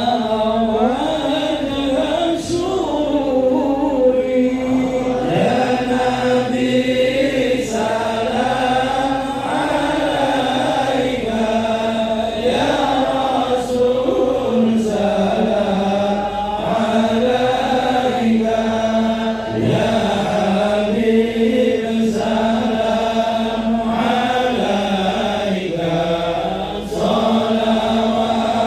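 A group of voices chanting a melodic Islamic devotional chant together, the melody rising and falling over a steady held low pitch.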